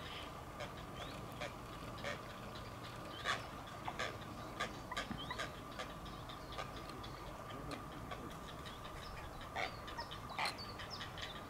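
Grey heron nestlings' begging calls: an uneven scatter of short, sharp clicking and chattering notes over a steady faint hum.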